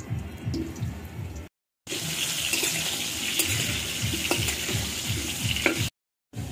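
Potato pieces sizzling in hot mustard oil in an aluminium kadai, with a metal spatula scraping and clicking against the pan as they are stirred. A low, regular throbbing comes first, and the sound breaks off twice in short silences.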